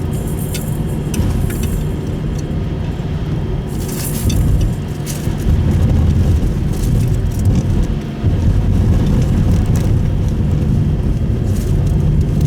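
Subaru Impreza Sport driving on a snowy road, heard from inside the cabin: a steady low rumble of engine and tyre noise that grows a little louder about four seconds in and again near eight seconds, with a few short hisses.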